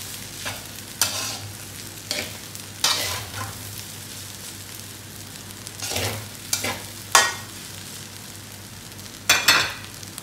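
Slotted metal spatula scraping and knocking against a metal wok as fried rice is stirred and turned, in irregular sharp scrapes, some in quick pairs, over the steady sizzle of the rice frying. The rice is almost done, toasting in the pan.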